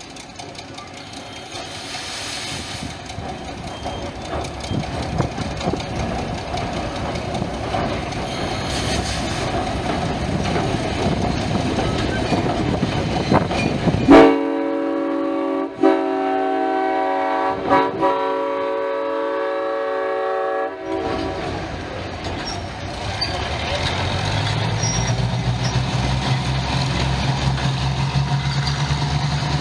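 A diesel locomotive drawing in, its rumble and rail noise growing louder. About halfway through, its horn sounds for roughly six seconds with two brief breaks. Near the end its engine runs steadily.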